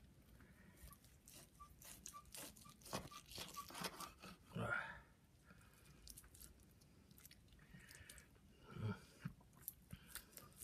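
Carving knife sawing through the crisp crackling of a roast pork joint: faint, irregular crunching and cracking, thickest in the first half.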